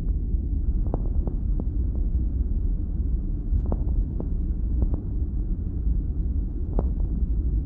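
Auscultation recording of chest sounds through a stethoscope: a steady, muffled low rumble with a few faint scattered clicks.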